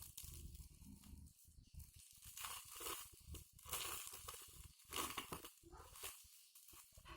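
Packaging being handled and opened: irregular crinkling and tearing rustles, loudest about midway.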